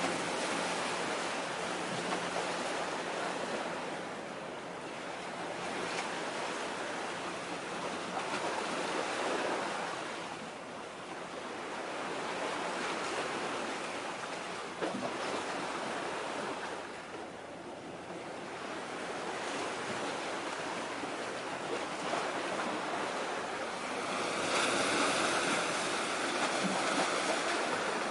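Steady rushing noise of wind and waves at the shoreline, swelling and easing every few seconds and growing louder near the end.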